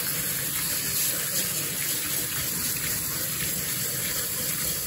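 Kitchen tap running steadily onto red potatoes in a stainless steel sink, the water splashing over them as they are rinsed.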